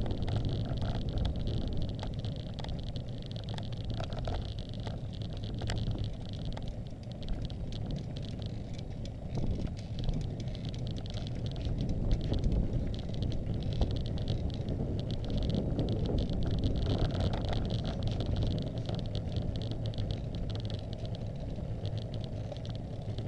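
Road bicycle in motion heard from a bike-mounted camera: steady rumble of wind on the microphone and tyres on asphalt. A high steady hiss sits over it, fading around the middle and coming back.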